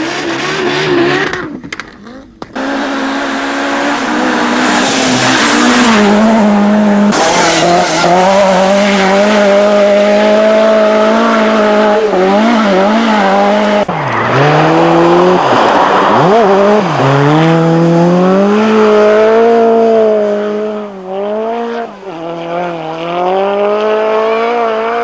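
Group B rally car engine running at high revs, climbing through the gears, lifting off and picking up again. There is a brief gap about two seconds in.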